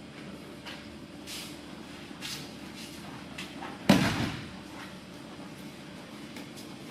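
A single heavy thud about four seconds in, a body landing on the mat in a breakfall from an aikido throw. Softer swishes of feet and gi brushing the mat come before it.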